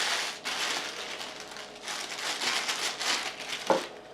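Plastic packaging crinkling and rustling as it is handled, with one sharp click near the end.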